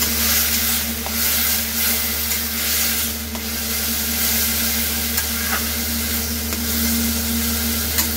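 Freshly added grated tomato sizzling in hot oil in an iron kadai while a metal spatula stirs and scrapes it through the frying onion mix, with a few sharp clicks of the spatula against the pan later on.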